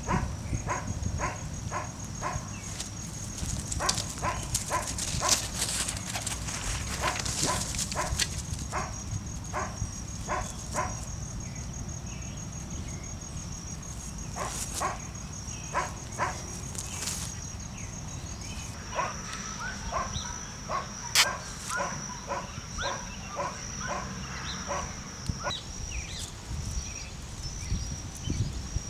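A dog barking in repeated short runs, over a steady high-pitched whine.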